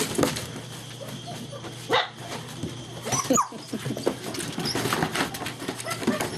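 German Shepherd puppies playing together: a few short yips and barks, about two seconds in and again around three seconds in, over steady scuffling and clicking.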